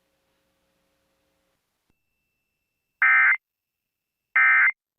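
Emergency Alert System end-of-message (EOM) signal: two short, loud bursts of SAME digital data screech, about three and four and a half seconds in, each about half a second long and a second apart. Its repeated bursts mark the close of the required monthly test. Before them only a faint hum.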